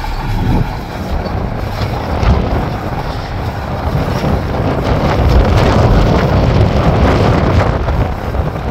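Heavy diesel earth-moving machine running, swelling louder around the middle, with wind buffeting the microphone.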